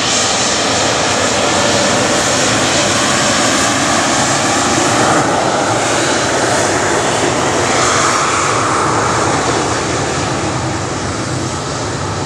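Jet engines of a taxiing Finnair airliner: steady, loud engine noise that eases slightly near the end.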